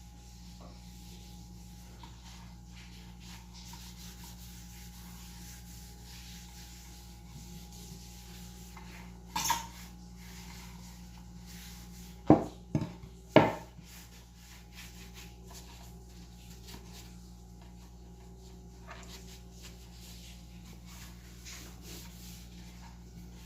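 Pieces of wood being handled and rubbed over a steady low hum. There is a sharp clatter about nine seconds in and three hard wooden knocks a little after twelve seconds.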